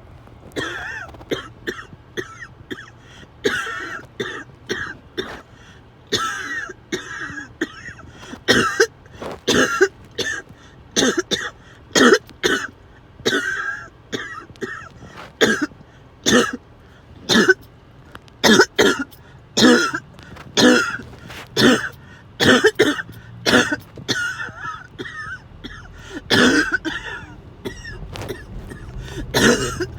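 A person's harsh coughing fit: dozens of sharp coughs in quick succession, coming faster and louder after about eight seconds.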